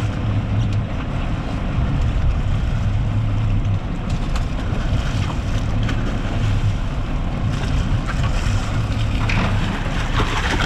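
Sportfishing boat's engine running with a steady low hum, with wind and sea noise over it.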